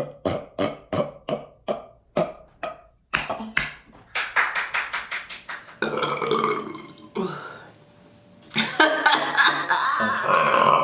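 A woman burping: a quick run of short burps, then two long, drawn-out burps, the louder one near the end.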